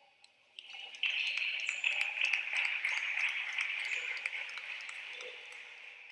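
Clapping and cheering that starts suddenly about a second in and slowly dies down.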